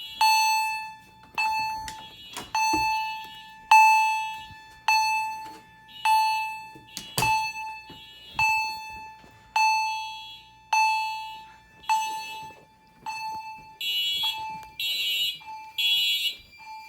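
Fire alarm chime striking about once a second, each strike ringing and fading. Near the end a horn joins in with groups of three short blasts (temporal-three evacuation code).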